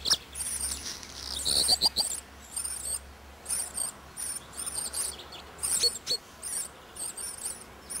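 Common chaffinch nestlings begging at the nest: thin, very high-pitched squeaks repeated in quick clusters, with a short lull about three seconds in.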